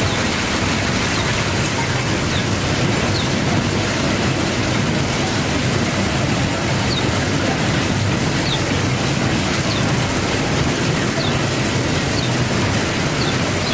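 Steady, even noise of cotton-seed oil mill machinery running, with cottonseed pouring from a chute onto a heap. A few faint, short high chirps come through now and then.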